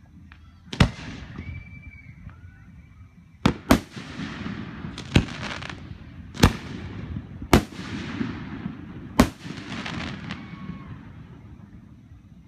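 Aerial fireworks shells bursting: seven sharp bangs over about nine seconds, two of them in quick succession, each followed by a fading echo.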